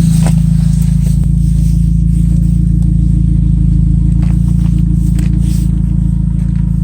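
Saab 95 engine idling steadily through an exhaust with the muffler deleted and the exhaust leaks sealed: a loud, even low drone.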